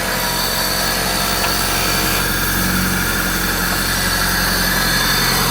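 Car engine idling steadily, with an even low hum.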